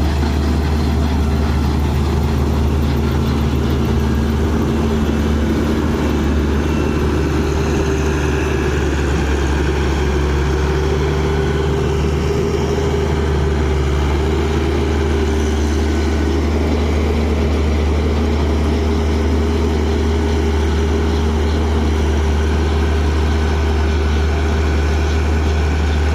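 Swaraj combine harvester's Ashok Leyland 88 HP diesel engine running steadily under load while the machine cuts rice, with a strong low hum and a steady drone.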